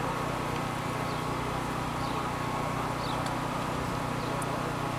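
Steady low mechanical hum, with faint short high chirps about once a second.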